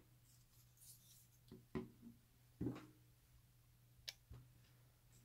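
A few faint clicks and taps from a plastic screen-protector applicator frame being eased off a phone, over a low steady hum.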